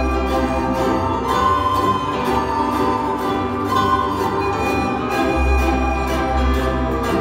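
A children's ensemble of ukuleles, recorders and a violin playing a tune together: steady strummed ukulele chords under held recorder and violin notes.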